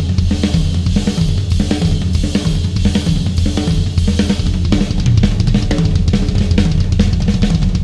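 Drum kit built from Yamaha Stage Custom Birch and Stage Custom Hip drums, played continuously: dense, fast strikes with cymbals ringing over a low, sustained boom.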